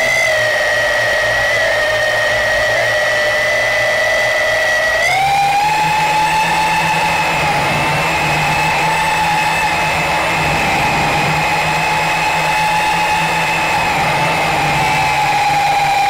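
Yizhan Tarantula X6 quadcopter's four brushed motors and propellers whining steadily, picked up close by the onboard camera. About five seconds in the pitch steps up as the motors speed up, then holds high, easing down slightly near the end.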